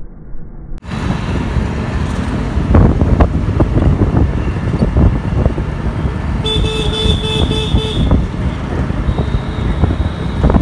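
Loud street traffic noise that cuts in about a second in. About six and a half seconds in, a vehicle horn beeps about four times in quick succession.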